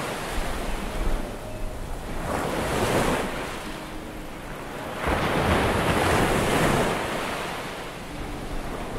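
Ocean surf washing on a sandy shore: a steady rush of breaking water that swells about two seconds in and again, more strongly, about five seconds in.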